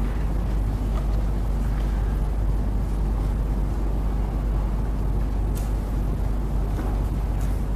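Steady low rumble with hiss, the background noise of the courtroom recording, with one faint click about five and a half seconds in.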